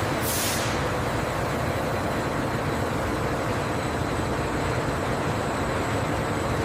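Steady machinery noise from oil-processing equipment, an even rumble and hiss with faint high steady tones, and a brief high whoosh about half a second in.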